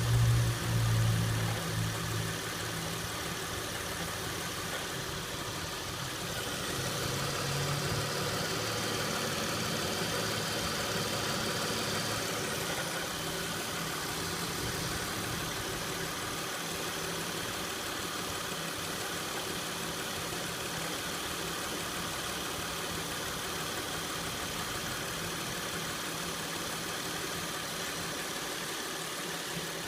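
2006 Acura MDX's 3.5-litre V6 idling steadily with a rattle that has just started and whose cause the owner does not know. There is a louder low rumble in the first couple of seconds.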